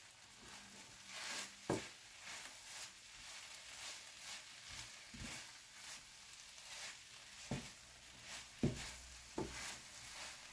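Wooden spatula stirring and turning cheese-coated fries in a nonstick frying pan: faint scraping and shuffling of the fries, with a few sharp knocks of the spatula against the pan.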